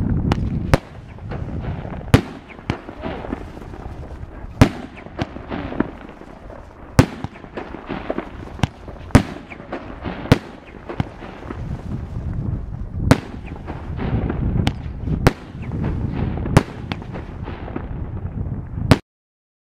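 A 50 mm salute firework cake firing shot after shot. Sharp loud bangs come every second or two, with rumble and crackling between them. The sound cuts off abruptly near the end.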